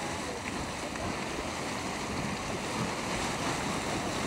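Steady rushing, churning noise of a boiling hot spring, its water and steam surging without a break.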